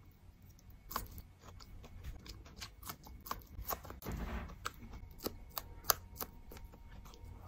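Close-miked eating of soft dark berries: a string of sharp, wet mouth clicks and smacks, with a short rustling burst about four seconds in.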